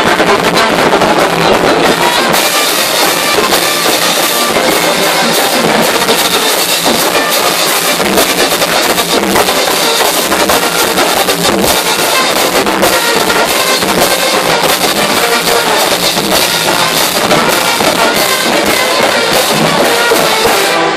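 A brass marching band playing loudly at close range: trumpets and trombone over bass drums and snare drums, with a fast, steady drumbeat.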